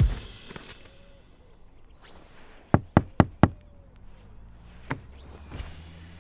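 Four quick knuckle knocks on a car's side, each about a quarter of a second apart, followed by a fainter single knock a second and a half later.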